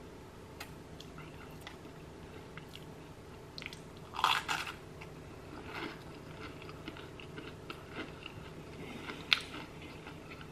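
A crunchy bite into an air-fried breaded onion ring about four seconds in, then close-up chewing with a smaller crunch and scattered wet clicks.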